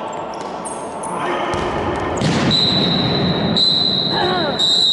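Futsal play in a large sports hall: the ball being kicked and bounced, and a few short shoe squeaks on the court floor about four seconds in. About halfway through, a steady high-pitched tone starts suddenly and holds.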